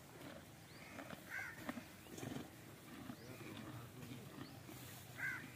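Faint sounds of zebras grazing close by, tearing and chewing grass, with two short high chirps about a second and a half in and near the end.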